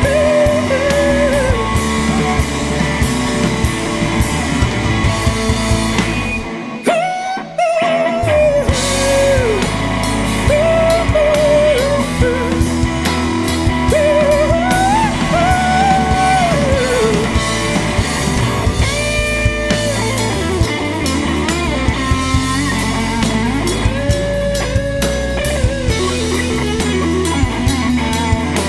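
Live blues-rock band playing electric guitars, bass and drum kit, with a melody line of sliding, held notes on top. The drums and bass drop out briefly about seven seconds in while a held note rings, then the full band comes back in.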